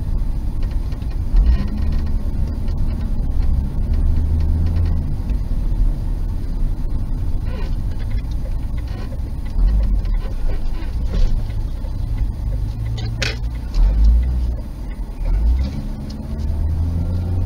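Car engine and road noise heard from inside a moving car's cabin: a steady low rumble that swells and eases with the driving. There is one brief click about three-quarters of the way through.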